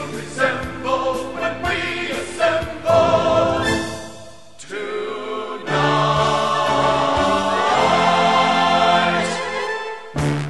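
Closing bars of a song with a choir singing over orchestral backing, building to a long held full chord and then one short final chord hit.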